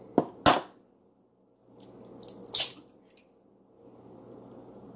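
Egg being cracked: two sharp knocks of the shell against the rim of a bowl, then lighter clicks and crackling as the shell is pulled apart and the egg drops in.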